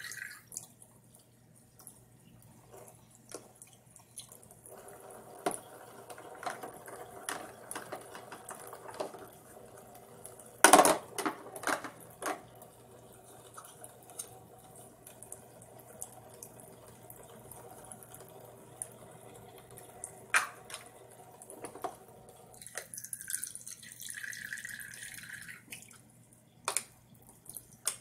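Water trickling from a toy kitchen sink's faucet as a child rinses plastic cups under it. Sharp knocks of plastic cups against the plastic sink come now and then, the loudest about eleven seconds in.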